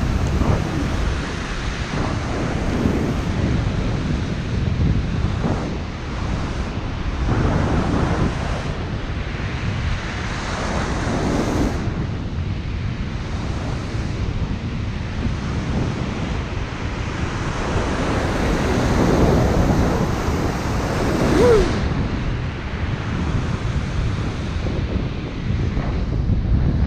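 Rough ocean surf breaking and washing in, a steady rumble with slow surges as waves come through, with wind buffeting the microphone.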